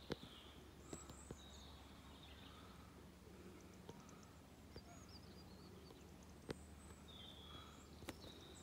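Near silence: faint outdoor background with a steady low rumble, a few faint high bird chirps and a couple of small clicks.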